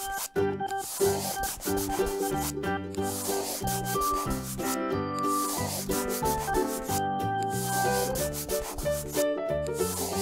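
Scribbling sound effect of a marker rubbing on paper, a steady scratchy rubbing broken by short pauses every couple of seconds, over light background music with a melody.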